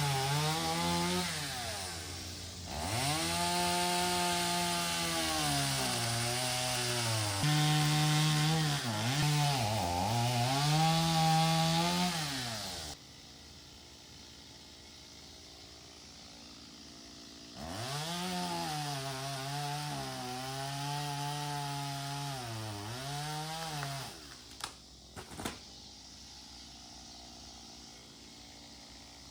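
Two-stroke gas chainsaw cutting into a rotted tree trunk, its engine pitch dipping and rising as the chain loads up in the wood. It runs for about twelve seconds, drops off for a few seconds, then cuts again for about six seconds, followed by two sharp knocks.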